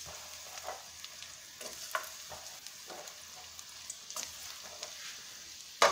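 Thin slices of garlic frying in hot vegetable and sesame oil in a Teflon pan: a steady sizzle with scattered small pops, and one sharp knock near the end.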